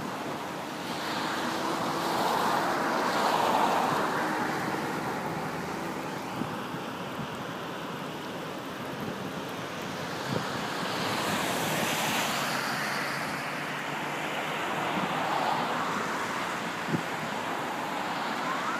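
Steady rush of a flooded stream's fast brown water with wind buffeting the microphone, and road traffic swelling past and fading several times. Right at the end a siren starts to rise.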